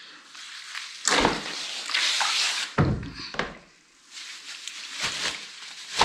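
Handling noise: a bag rustling as it is worked in a plastic basin, with a dull thump about three seconds in and another soon after.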